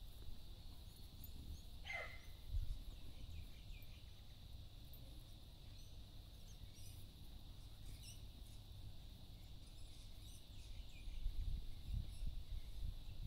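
Faint outdoor ambience: scattered high bird chirps over a low, uneven rumble, with one quick falling squeak about two seconds in.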